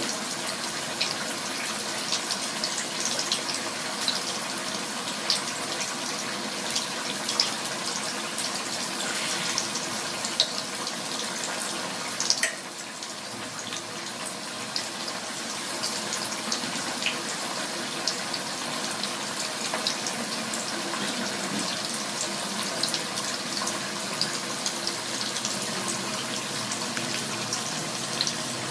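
Food frying in hot oil: a steady sizzle with many small crackles and pops. About twelve seconds in a sharper click comes, and the sizzle drops briefly, then builds back up.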